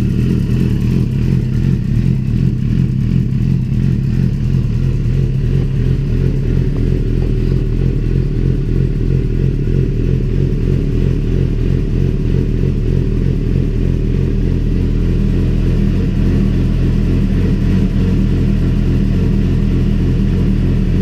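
Suzuki GSX-R600 K7's inline-four engine idling steadily, just started after an oil and filter change so the fresh oil circulates.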